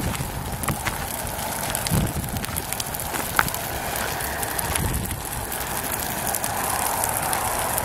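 Grass and brush fire crackling with scattered sharp snaps over a steady rushing of wind on the microphone.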